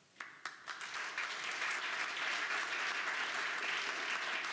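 Audience applauding: a few scattered claps at first, filling out into steady clapping from the whole room about a second in.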